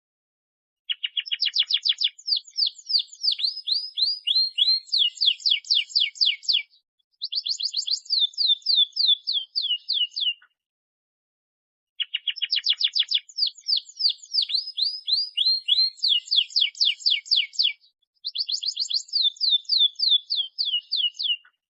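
Domestic canary singing rapid trills of repeated down-sweeping notes. There are four bursts, a long one and a short one, then the same pair again, with dead silence between them.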